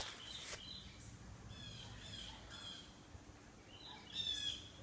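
Small birds chirping in short, repeated bursts of high calls, with a burst of several chirps near the end, over faint outdoor background noise.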